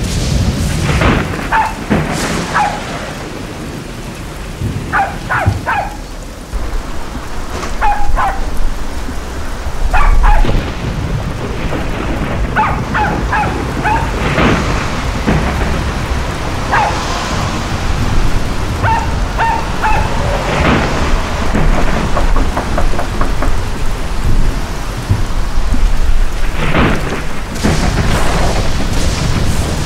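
Storm sound effect of steady heavy rain with rolling thunder surging now and then, and a dog's short pitched calls heard several times over it.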